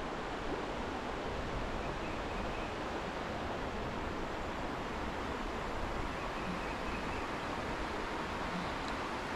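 Steady rush of a shallow creek flowing.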